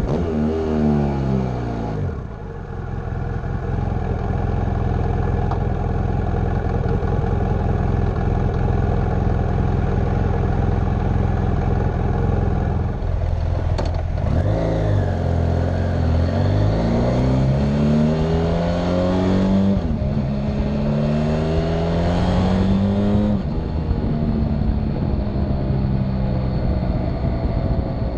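BMW F800 GS parallel-twin motorcycle engine and exhaust under way. The revs fall for the first couple of seconds and then hold steady. From about halfway the revs rise three times in a row, each rise cut short by a brief dip like a gear change, before settling to a steady note near the end.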